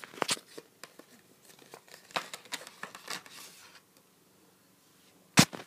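Paper rustling and crinkling in irregular bursts as a gift voucher and its envelope are handled, then a single sharp knock near the end.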